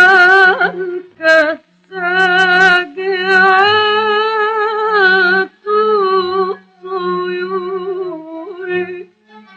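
A woman singing an Arabic song in long, wavering held notes, phrase by phrase, with short breaks between phrases and a faint accompaniment beneath. The sound is that of an old recording from the late 1930s.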